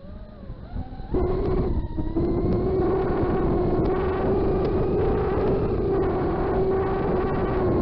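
FPV quadcopter's brushless motors and propellers whining: throttled low with the pitch sagging for about the first second, then punched up just after a second in to a steady high whine.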